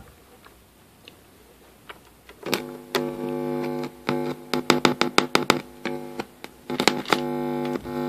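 Buzzing hum from the speakers as an audio plug is pushed into the amplifier's input jack: the hum cuts in about two and a half seconds in, breaks up into rapid crackles and clicks as the plug makes and loses contact, then holds steady near the end.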